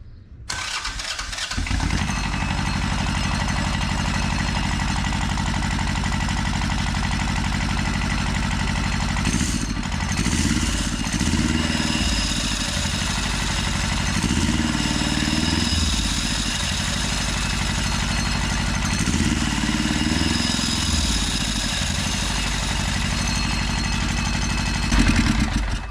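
Yanmar turbo diesel engine on a homemade motorcycle fitted with a centrifugal clutch, coming to life and running, then revved up and let back down to idle three times.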